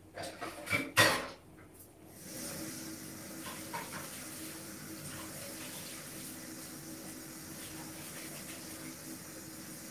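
A few knocks and clatters, the loudest about a second in, then a kitchen tap running steadily.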